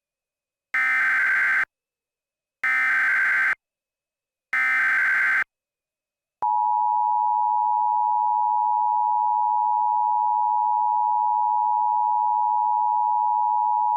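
Emergency Alert System signal: three harsh, buzzy bursts of SAME header data, each about a second long, then a long steady attention tone from about six seconds in, announcing an emergency alert message.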